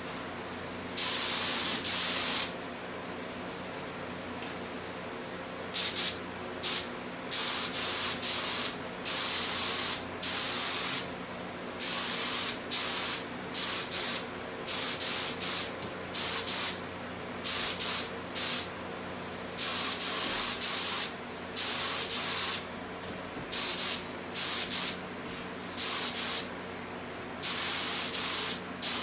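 Compressed-air gravity-feed spray gun hissing as paint is sprayed onto a metal frame: one burst about a second in, then after a pause a run of quick bursts, each a trigger pull lasting under a second or so. A steady low hum runs underneath.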